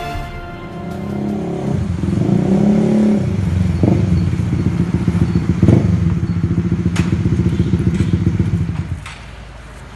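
Motorcycle engines running as two bikes ride in and pull up, revving about two seconds in, then running with an even, pulsing beat until the sound drops off near the end.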